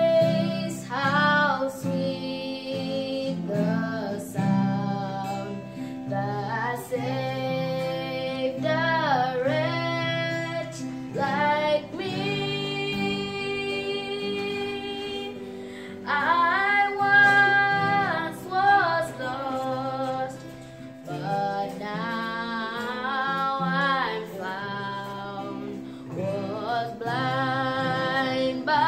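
A high voice singing a slow melody with long held, wavering notes over a steady instrumental accompaniment.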